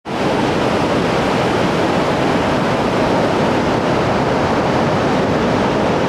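Pacific Ocean surf breaking and washing onto the beach: a steady, unbroken rushing of waves.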